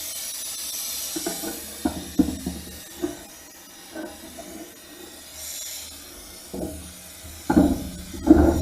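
Oxy-acetylene cutting torch (gas axe) cutting through steel plate: a steady gas hiss with irregular pops and crackles, heavier near the end.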